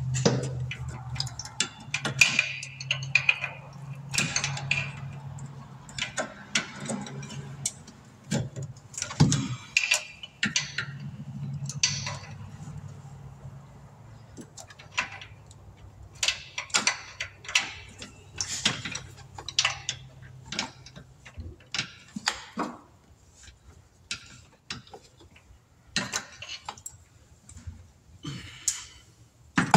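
Hand ratchet and metal tools clicking and clinking against engine parts, in irregular bursts with short metallic rings. A low steady hum stops about two-thirds of the way through.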